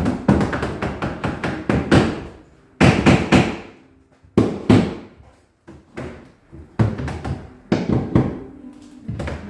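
Hammer knocking on wood in quick, irregular clusters of blows, with short pauses between the clusters.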